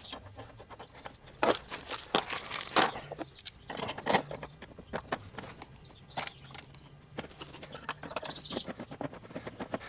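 Irregular light clicks and taps of an Allen key and bolts being handled and threaded in to fasten strut-tower bar mounts on a car's shock towers.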